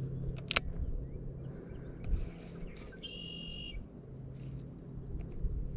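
A bird gives one buzzy call of several stacked tones, just under a second long, about three seconds in. Under it runs a low steady hum that fades after about a second and a half and returns near the end, and a single sharp click comes about half a second in.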